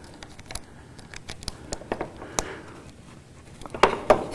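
Scattered light clicks and taps of an electrical plug and its cord being handled and pushed into a socket, with a few sharper knocks near the end.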